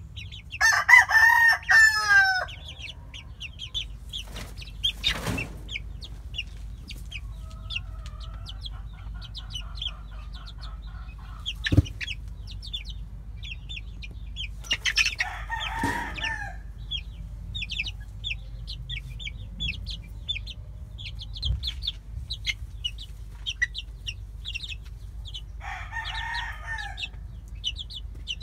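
Young American gamefowl in a pen: a steady stream of quick, high cheeping throughout, with a loud crow lasting about two seconds near the start and two shorter crowing calls around the middle and near the end. A single sharp knock sounds about halfway through.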